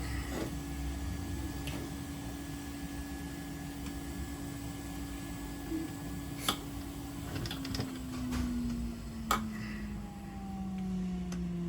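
Steady hum of the hot air rework station's blower, with a constant tone that starts sliding steadily lower about seven seconds in as the motor slows. Two sharp clicks, about six and nine seconds in.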